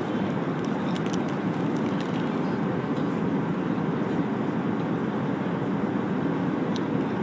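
Steady airliner cabin noise in flight: an unbroken low rush of engines and airflow, with a few faint clicks.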